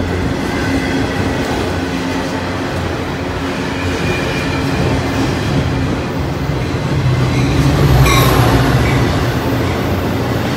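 Freight train of autorack cars rolling past close by: a steady rumble of wheels on rail. About eight seconds in, the rumble swells and a brief high wheel squeal rings out.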